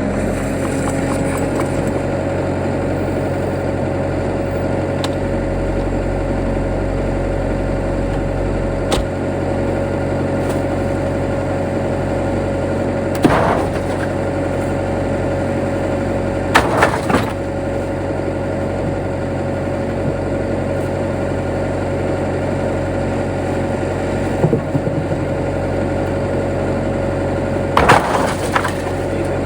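An engine running at a steady speed, a constant drone, with a few short rattles or knocks about halfway through and again near the end.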